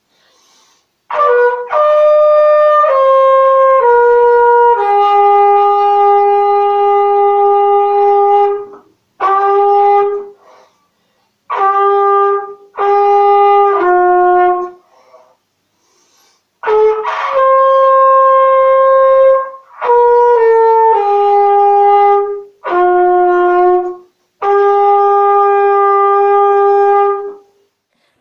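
Solo trumpet playing a slow melody of long held notes, in several phrases separated by short pauses.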